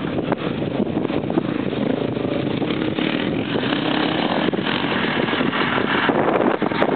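Dirt bike engine under hard throttle as the bike pulls away and climbs a steep dirt hill, running steadily and getting slightly louder near the end.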